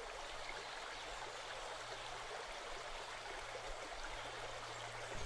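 Faint, steady rush of water, with a low hum beneath.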